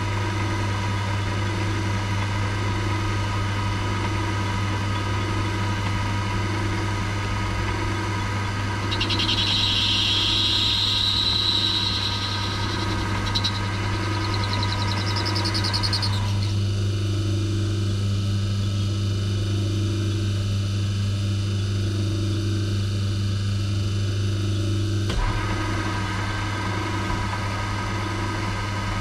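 Myford lathe running steadily with its chuck spinning: a steady hum with a slow, regular throb. About nine seconds in, the boring bar cuts the valve seat's bore for a few seconds, adding a higher hiss.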